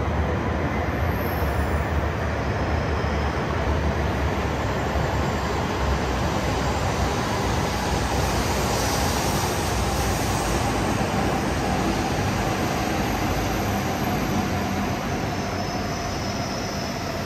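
Shinkansen bullet train running along the platform track, a steady rushing rumble with a low hum that eases slightly near the end.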